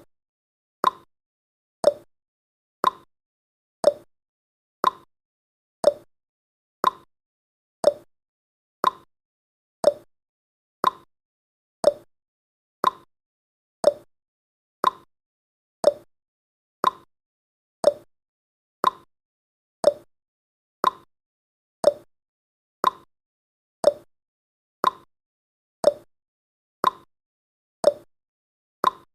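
Countdown timer's ticking sound effect: a short, sharp tick once every second, evenly spaced.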